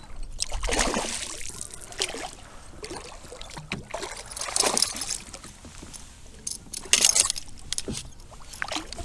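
A hooked largemouth bass splashing at the surface beside a kayak while it is fought and landed, in several separate bursts, with water trickling between them.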